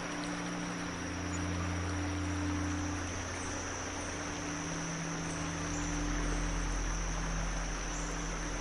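Woodland stream flowing steadily, an even rush of water, under a low ambient drone whose notes shift about a second in and again near six seconds. A thin steady high tone sits above it.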